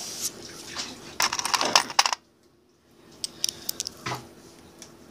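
Coins clinking and rattling as a small coin-filled case is handled, in two quick clusters of clicks, with a brief pause between them and a duller knock about four seconds in.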